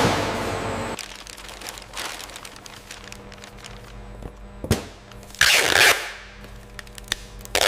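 Clear packing tape pulled off its roll to seal a cardboard box, heard as a loud tearing screech a little past halfway and again near the end, with paper crinkling and light knocks in between.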